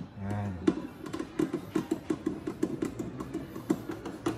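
Hand screwdriver driving a tail light assembly's mounting screw home, with rapid, regular clicking about five times a second as the screwdriver is turned. A short hum comes just before the clicking starts.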